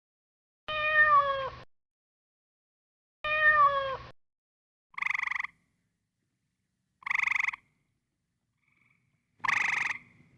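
Animal calls with silence between them: two drawn-out calls that fall slightly in pitch, then three short buzzy calls about two seconds apart.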